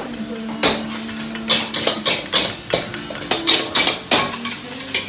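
Metal spatula clanking and scraping against a wok during stir-frying, a sharp ringing clank every half second or so.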